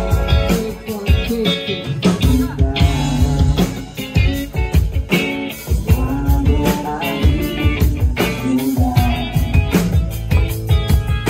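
Rock band playing, with electric guitar over drums.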